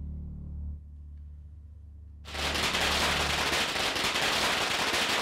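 A low, steady musical drone, then about two seconds in a loud, dense crackle of many rapid small bangs sets in and keeps going: a string of firecrackers going off.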